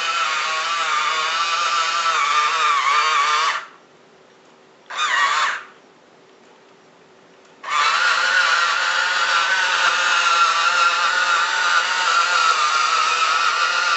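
Small electric drive motors and gearing of a remote-control wooden bulldozer whirring with a steady whine. It stops after about three and a half seconds, comes back for a short burst about five seconds in, then runs steadily again from about eight seconds on.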